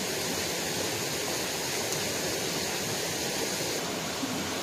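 Stream water running steadily over rocks, an even rushing noise.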